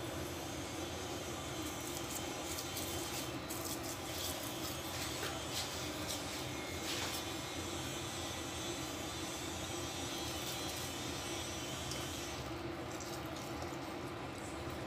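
Steady hum and hiss of background noise, with faint, small wet clicks as a raw squid is pulled apart and cleaned by hand.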